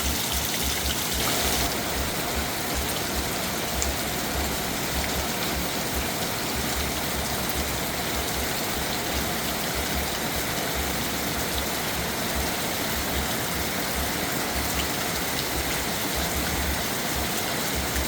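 Steady rain falling, a dense even hiss of drops that eases slightly in its upper range about a second and a half in.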